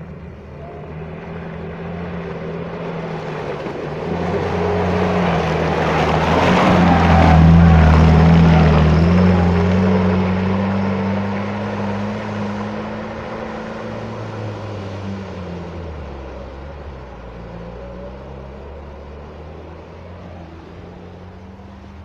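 Off-road 4x4's engine working hard through deep mud, its note rising and falling with the throttle, and tyres churning through the slop. It grows louder to a peak about seven to eight seconds in, then slowly fades.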